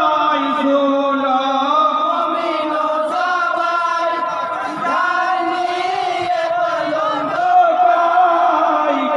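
Men's voices chanting a Bengali jari gaan, a Muharram lament song, in chorus with a lead singer on a microphone, in long held notes.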